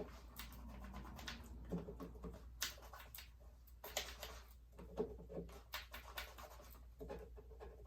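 Leather conditioner being rubbed by hand into a vegetable-tanned leather axe sheath: soft, irregular scratching and rubbing strokes.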